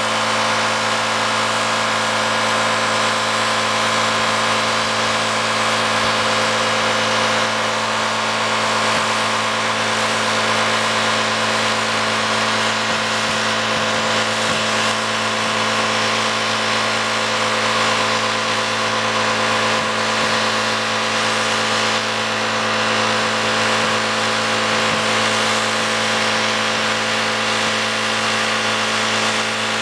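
Mazda 626 engine held at steady high revs through a burnout, holding one unchanging pitch without a break.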